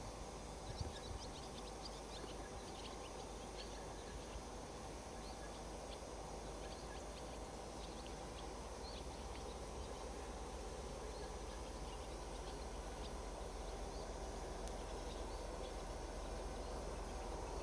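Distant 2M62U twin-section diesel locomotive approaching, the drone of its two-stroke diesel engines growing slowly louder. Faint short high chirps over it.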